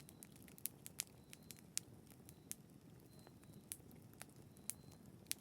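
Wood campfire crackling: irregular sharp pops, several a second, over a faint low hiss.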